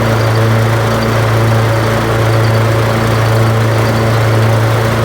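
Lawn mower engine running steadily with the cutting blades engaged, carrying a constant ringing noise over the engine hum.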